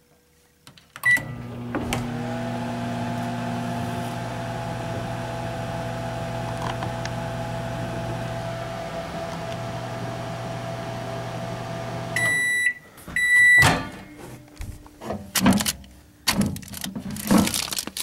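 Microwave oven: a key-press beep about a second in, then the oven running with a steady hum for about eleven seconds. It shuts off and sounds two long beeps to signal the end of the cycle, followed by a few knocks and clatter.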